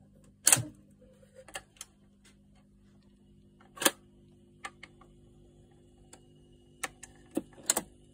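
Mechanical clicks and clunks of a Fidelity record player's autochanger as its control is worked and the tonearm swings over and lowers onto a spinning 45, over the low hum of the turntable motor. The sharpest clicks come about half a second in, near four seconds and in a cluster near the end.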